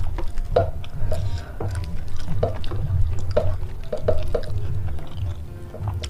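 Background music with a steady low beat, over scattered soft wet clicks of fingers gathering rice and chilli sambal into a lettuce leaf.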